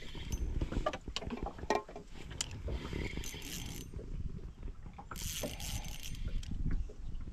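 A spinning reel being worked by hand: small sharp clicks about a second in, then short spells of light whirring as the handle is turned. Under it runs a steady low rumble of wind and water against a small boat.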